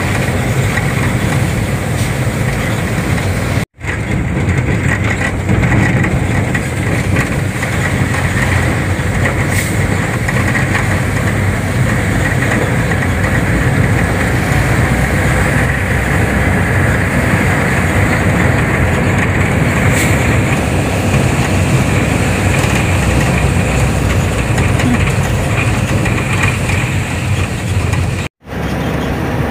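Sugarcane truck's engine running with road noise, heard from inside the cab on the move; a steady, loud din that cuts out abruptly twice, about four seconds in and near the end.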